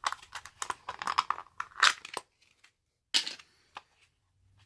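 Plastic packaging crinkling and tearing as it is pulled out of a plastic bit case: a quick run of crackles for about two seconds, then one more short crackle about three seconds in and a small click.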